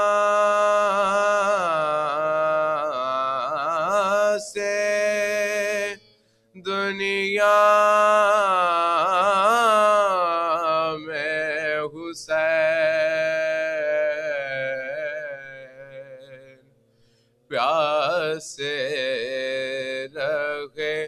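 A man chanting a marsiya, a mourning elegy, with no instruments. His long held phrases waver in ornamented turns and break off for short pauses twice.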